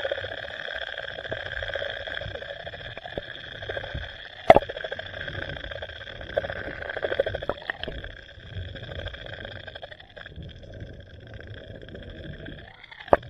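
Muffled underwater sound picked up by a submerged camera: a steady droning hum over a low rumble, with a few sharp knocks, the loudest about four and a half seconds in.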